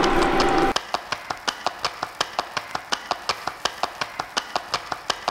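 Spatula chopping at a block of rice in a stainless steel pot: quick, even taps against the food and the pot, about six a second, following a short stretch of steady noise at the start.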